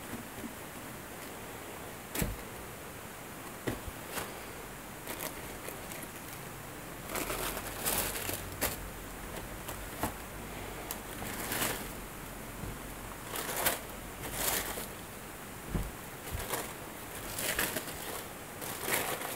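A few sharp clicks from the cardboard shoebox, then repeated rustling and crinkling of the printed tissue paper wrapping new shoes as it is pulled open.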